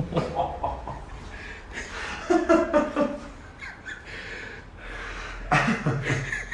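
A man breathing out hard with short grunts while his shoulder and back are worked in a chiropractic adjustment.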